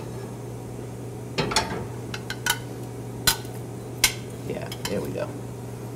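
Metal tongs and utensils clinking against stainless steel pans and dishes: a handful of separate sharp clicks over a low steady hum.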